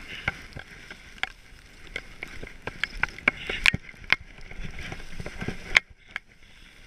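Skis hissing over snow during a downhill run, with many sharp clicks and knocks. The sound grows louder about three seconds in and drops off abruptly just before the end.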